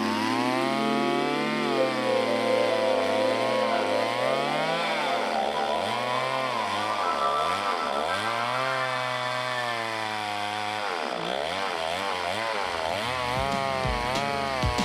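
Stihl 024 two-stroke chainsaw running at high speed on a chainsaw mill, ripping a log lengthwise; its engine pitch rises and sags again and again as the cut loads it.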